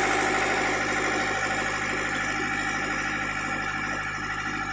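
Fishing boat's engine running steadily, slowly getting a little quieter.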